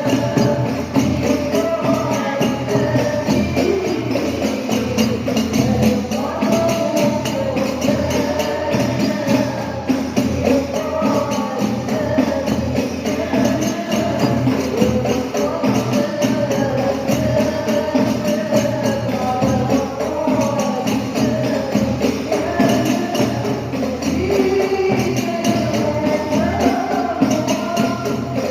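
Women's hadroh ensemble singing an Islamic devotional song (sholawat) together over hand-beaten rebana frame drums and tambourine-type jingles keeping a steady, busy rhythm.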